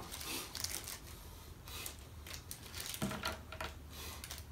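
Light clicks and rattles of small plastic parts of a foldable push-up board being handled, with a slightly louder cluster of clicks about three seconds in, over a low steady hum.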